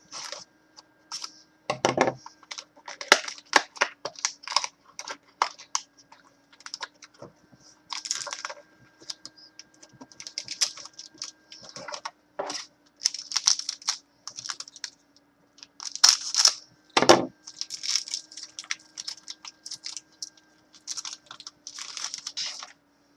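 Irregular clicking, tapping and short rustles of hands handling objects at a table, with a faint steady hum underneath.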